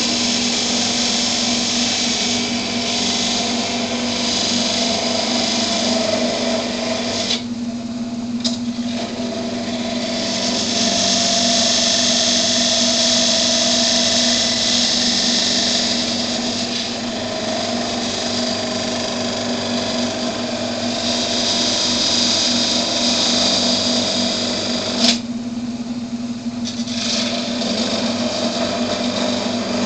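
Wood lathe running with a steady hum while a parting tool cuts into the spinning wooden top to part it off the stock, a high scraping hiss. The cutting hiss stops briefly about seven and a half seconds in, and again after a sharp click about twenty-five seconds in.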